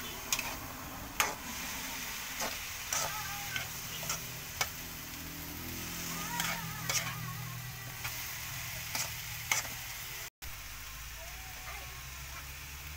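Green beans and corned beef sizzling in an oiled pan while a metal spoon stirs them, scraping and clinking against the pan at irregular moments. After a brief break about ten seconds in, the clinking stops and a low steady hum is heard under the sizzle.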